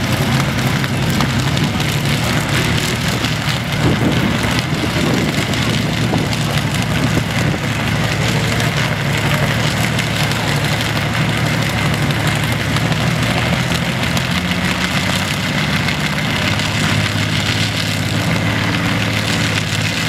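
An engine idling steadily: an even, low hum.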